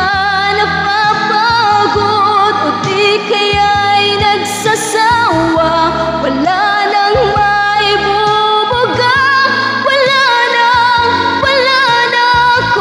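A woman singing a slow song over a backing track, holding long notes with vibrato.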